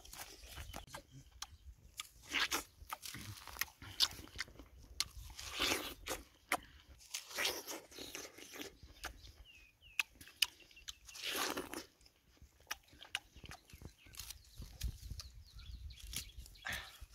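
A man biting into and chewing fresh watermelon: several wet, crunching bites with smacking chews and mouth clicks between them.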